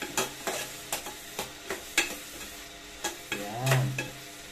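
Metal spoon scraping and clinking against a metal pot, several strokes a second, while ground beef sizzles in oil. Near the end comes a short low hum, the loudest sound.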